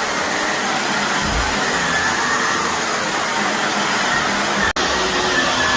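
Shark vacuum cleaner running steadily on carpet, sucking up dry soil and debris, with a faint whine from its motor. It drops out for an instant about three-quarters of the way through.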